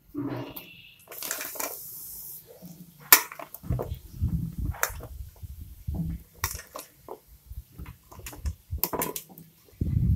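Chunks of raw jackfruit going into hot water in a metal kadai and being moved about, with watery splashes and scattered knocks against the pan. A short hiss comes about a second in.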